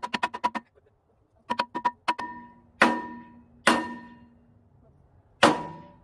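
A steel upright post on a Norwood HD36 sawmill frame being struck on top with a wooden beam to drive it into place. A quick run of lighter taps comes first, then three hard blows about a second apart, each leaving the post ringing.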